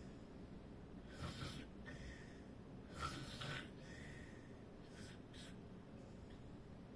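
Faint snoring: snorting, wheezy breaths of a sleeper coming about every two seconds, the last two short.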